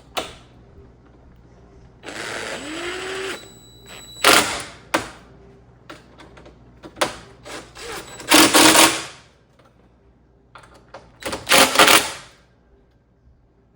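A power driver with a T20 Torx bit runs in short bursts, driving screws home into an oven door's panel brackets. Its first run, about two seconds in, rises in pitch. Sharp clicks and knocks come between the runs, and two louder bursts come later.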